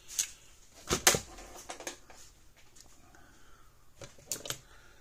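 Hands working at a workbench: a few short clicks and knocks of tools and wire connectors being handled, the loudest about a second in and another pair near the end.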